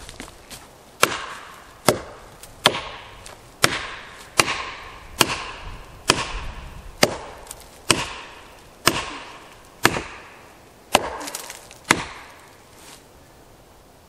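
Felling wedges being struck into the back cut of a back-leaning pine, about a dozen sharp blows roughly one a second, each with a short ringing tail, to lift the tree upright before it goes over.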